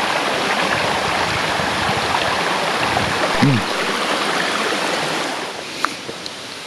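Clear mountain stream rushing over rocks, a steady wash of water noise that drops away somewhat about five seconds in.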